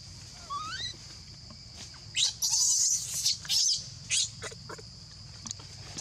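Newborn macaque squeaking with short rising calls, then giving a few loud, harsh screeches about two seconds in while its mother holds it down. A steady high insect drone runs underneath.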